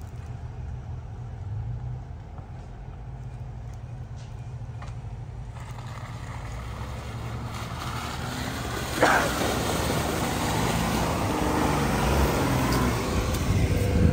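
Jeep Wrangler's engine running low and slow as it crawls down through mud, growing louder as it comes close and passes by near the end, with a brief sharp noise about nine seconds in.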